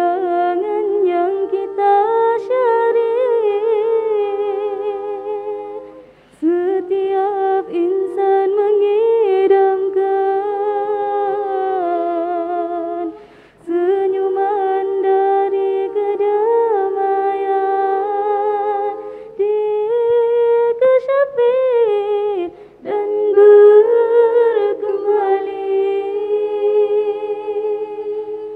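Female nasyid vocal group singing a cappella in close harmony, several voices holding long notes with vibrato. The phrases break off briefly about six, thirteen and twenty-three seconds in.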